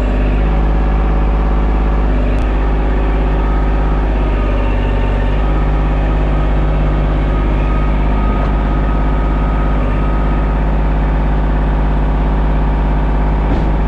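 A vehicle engine idling steadily, with an even, unbroken hum.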